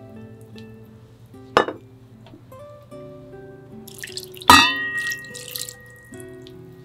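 Soy sauce being poured into a stainless steel bowl of chicken giblets. A ringing clink comes about four and a half seconds in, followed by a second or so of splashing liquid. A single sharp click comes earlier, over soft background music.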